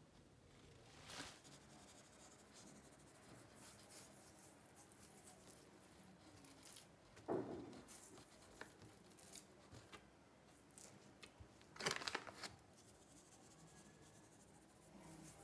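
Near silence broken by quiet handling of raw fish fillets and kitchen paper on a plastic cutting board: a dull thump about seven seconds in and a brief crackly, papery rustle about twelve seconds in.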